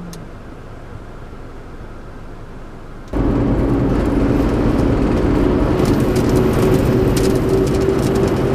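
Road noise inside a moving car. About three seconds in it jumps abruptly to a much louder drone with a steady hum and scattered light clicks.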